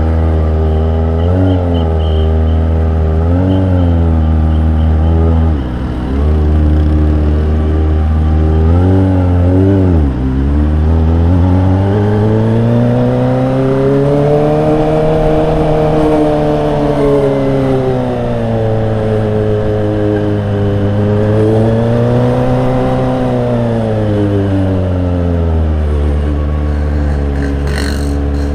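Kawasaki Ninja ZX-25R inline-four engine running through an aftermarket exhaust while riding in traffic. It starts with a few short throttle blips, then its note climbs and falls smoothly as the bike accelerates and eases off, several times over.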